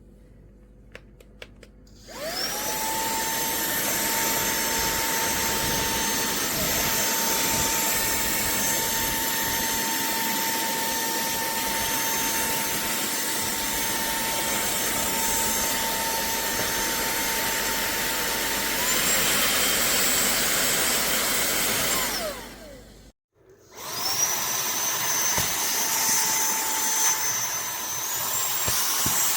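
Cordless handheld vacuum cleaner (SERVOMASTER) switched on with a rising whine, then running steadily with a high motor whine. Near the end of the run it steps up to a higher speed, then winds down and stops. It starts straight up again and steps up in speed once more.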